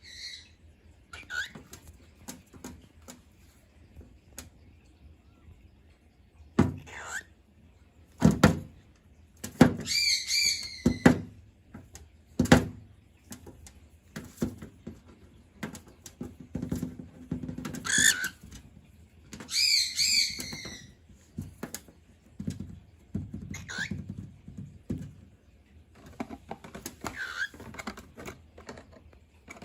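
Cockatiels giving short, wavering high-pitched calls in two bursts, about ten seconds in and again near twenty seconds, with several sharp knocks and thumps in between.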